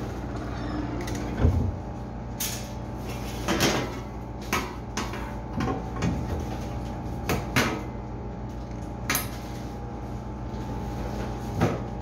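Sheet-metal front grille of a Sanyo commercial display fridge being handled and fitted back over the machine compartment: a string of about a dozen clanks and knocks, the loudest about a second and a half in. Under them runs the steady hum of the fridge's running refrigeration unit.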